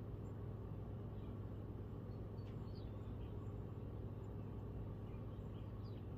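Steady low outdoor background rumble with faint, scattered high bird chirps coming a few times.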